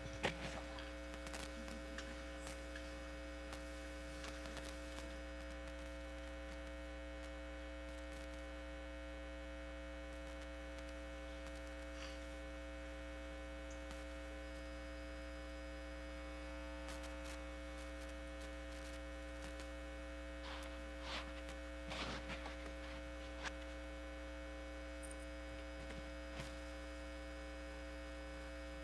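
Low, steady electrical mains hum on the hall's microphone and broadcast audio feed, with a few faint knocks in the second half.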